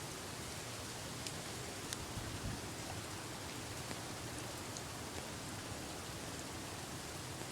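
Steady hiss of heavy falling snow, with a few faint ticks of flakes or drops striking surfaces.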